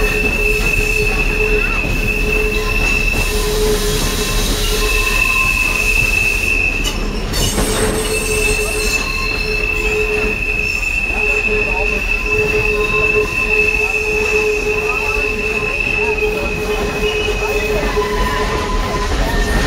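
Steel wheels of a steam-hauled train squealing against the rails: a high steady squeal with a lower tone beneath it, breaking off briefly a few times, over the steady rumble of the cars rolling along the track.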